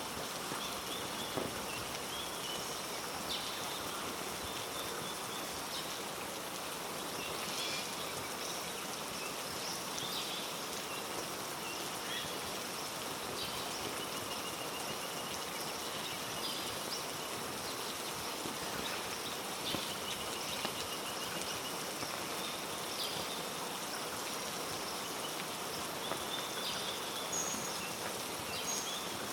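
Steady heavy rain falling through rainforest, an even hiss of drops on leaves. Over it come repeated high-pitched animal calls, some held and some warbling.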